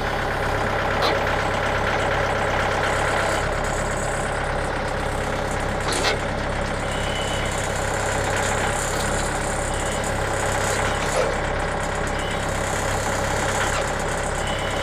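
Engine idling steadily, with a few short knocks about one, six and eleven seconds in.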